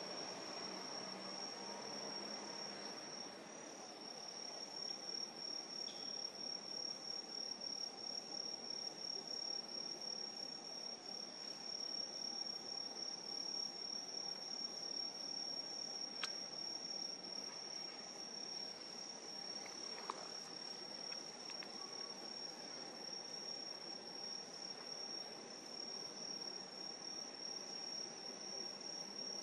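Crickets trilling continuously in a night-time autumn chorus: one high, steady, slightly pulsing trill, with a fainter lower-pitched trill beneath it.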